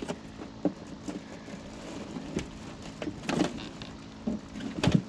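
Scattered light knocks and clatter, about half a dozen spread unevenly, the strongest near the end, over a faint steady low hum.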